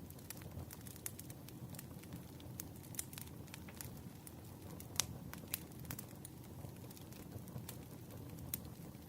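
Campfire burning with a low steady rumble and scattered sharp crackles and pops of burning wood, the loudest pop about halfway through.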